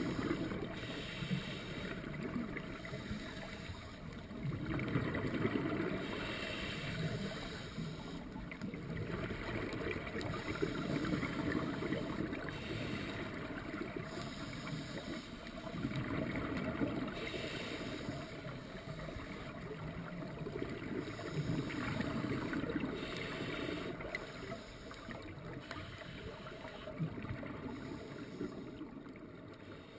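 Scuba regulator breathing heard underwater: a short hiss on each inhale and a bubbling rumble on each exhale, about one breath every five or six seconds.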